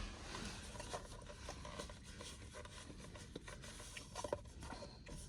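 A black Labrador licking out a small whipped-cream cup: faint, irregular licks and rubbing of tongue and muzzle against the cup, a little louder about four seconds in.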